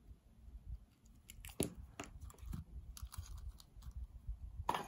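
Soft, scattered clicks and taps of fingers handling a small circuit board with its header pins and a flux syringe, with a louder click near the end.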